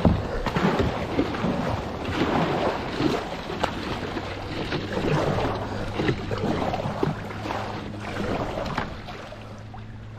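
Water sloshing and splashing against a moving kayak, with wind buffeting the microphone. A steady low hum comes in about four seconds in, and the splashing eases toward the end.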